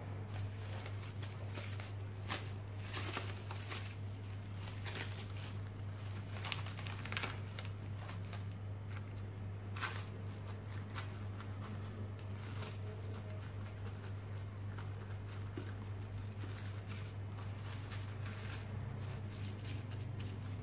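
Plastic cling film crinkling as it is pulled and stretched over a bowl and pressed down, in a run of sharp crackles that thins out after about twelve seconds, over a steady low hum.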